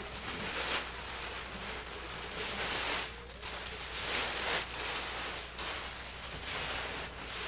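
Packaging rustling and crinkling as items are handled and pulled out of a box, in several louder swells a second or two apart.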